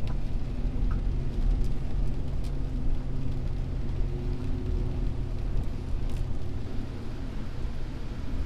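Steady low rumble of a U-Haul van's engine running, heard inside the cabin.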